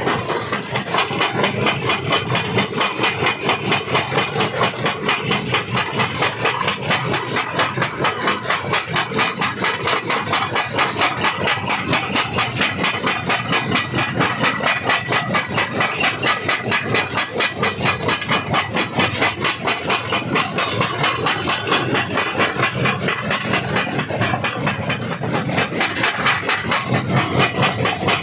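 Stone crusher running and crushing rock: a loud, steady mechanical clatter with grinding hiss, pulsing evenly at about three to four beats a second.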